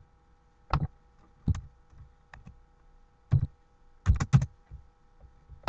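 Scattered clicks from a computer keyboard and mouse: single clicks spaced out, then a quick run of three a little after four seconds in, over a faint steady electrical hum.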